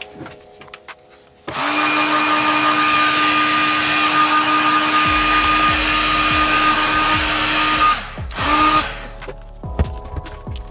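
Heat gun switched on about a second and a half in, blowing hot air with a steady fan whine for about six seconds, then a short second blast near the end. It is heating the vinyl sticker skin so that it conforms to the corners of the magazine.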